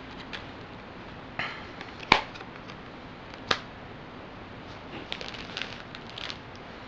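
Small packaged items and a deck of cards being set down and arranged on a table: a few separate sharp taps, then a run of light clicking and rustling near the end, over a steady faint hiss.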